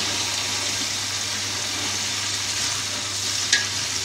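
Browned onions sizzling in hot oil in a cooking pot with a little water just added so they give up their colour, stirred with a spatula. One sharp knock of the spatula against the pot about three and a half seconds in.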